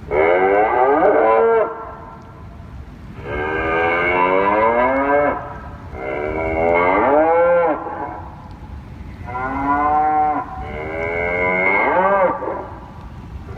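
Whelen WPS electronic outdoor warning siren sounding its test signal: five wavering, horn-like blasts of one to two seconds each with short gaps, the pitch sliding up and down so that it sounds like a cow mooing.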